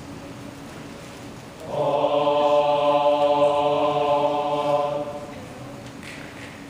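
Men's choir holding a sustained chord: a faint hum at first, swelling to full voice about two seconds in, held for about three seconds, then fading away.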